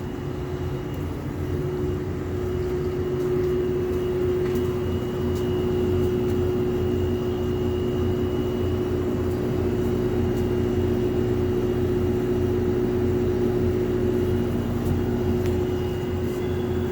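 Lloyd air conditioner's outdoor unit running with a steady hum of several held tones over a low rumble, like a train horn. This is the high-pitched hum fault that two service visits have not cured.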